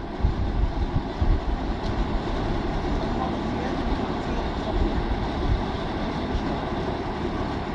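Engine of a truck-mounted water-well drilling rig running steadily.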